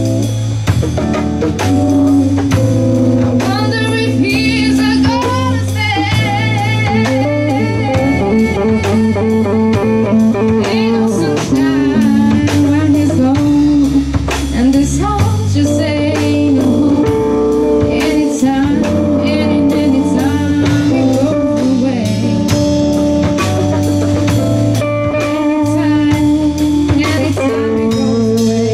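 Live band playing a bluesy jazz number: a woman singing with vibrato over electric bass, drum kit and hollow-body electric guitar.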